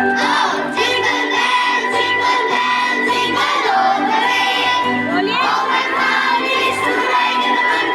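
Music: a song with several voices singing together over instrumental backing.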